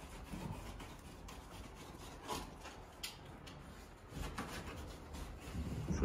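Faint rubbing and scraping with a few scattered light knocks.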